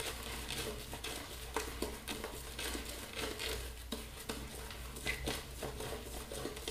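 Boar-bristle shaving brush working thick shaving-soap lather over stubbled cheeks and neck, a continuous wet, scratchy crackle of bristles scrubbing on skin.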